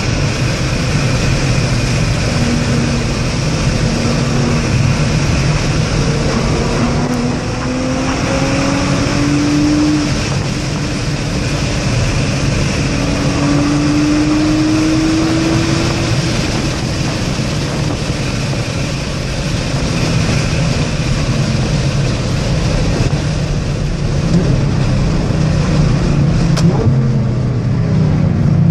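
Nissan GT-R's twin-turbo 3.8-litre V6 heard from inside the cabin while driving, over loud, steady road and wind noise. The engine note rises in pitch several times as the car accelerates.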